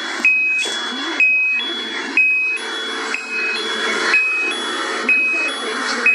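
Kitchen chimney control-panel buzzer beeping non-stop in a regular two-tone pattern, a lower beep then a higher one, repeating about once a second over a steady low hum. The continuous beeping, together with a blinking display digit, is the symptom of a faulty control PCB.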